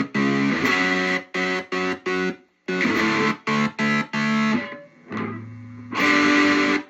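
Distorted electric guitar chords chopped on and off in quick rhythmic stutters by a kill switch made from a light switch, each burst starting and stopping abruptly. About five seconds in, a lower note sounds quietly for a moment before the chopped chords return.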